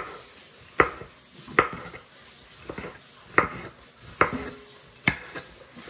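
Knife chopping small hot peppers finely, with sharp separate chops a little under a second apart, about eight in all.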